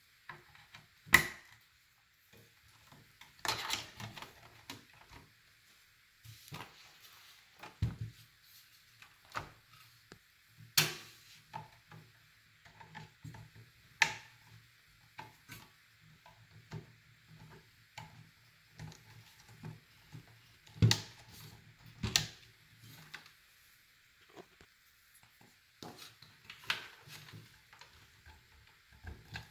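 PC power and data cable connectors being handled and plugged into a motherboard inside a computer case: irregular sharp plastic clicks and light knocks, the loudest about a second in and around twenty-one and twenty-two seconds, with faint handling noise between.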